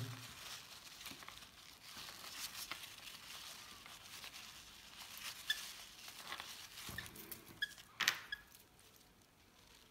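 Paper towel rustling and crinkling in the hands as a hand-fed lovebird chick's beak is wiped clean, with a few short, faint high squeaks in the second half and a sharp tick about eight seconds in.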